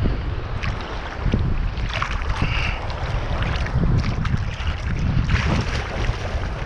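Wind buffeting the microphone in gusts, over the hiss of sea surf on the shore.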